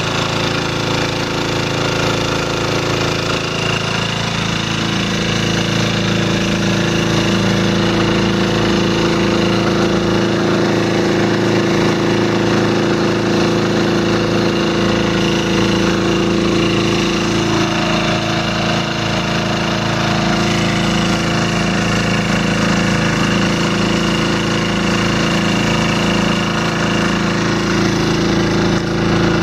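A Keene mini 6-inch gold dredge's engine and water pump running steadily. The engine comes up a little in pitch a few seconds in, then holds at a constant speed. It is pressurising the patched high-pressure hose to test the repair for leaks.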